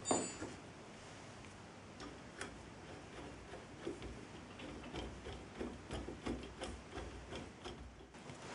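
A sharp metallic clink with a brief ring at the start, then a run of small, irregular clicks and taps as a hex key turns screws into a metal 3D printer frame.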